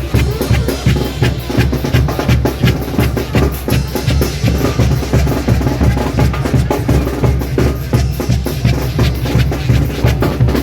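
A live banda plays a merengue from its medley, with drum kit and bass drum keeping a steady, driving beat.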